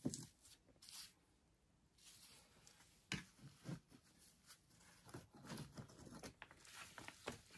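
Faint, scattered scrapes and knocks of stones being shifted and set into mortar by gloved hands on a stone wall, the sharpest knock about three seconds in.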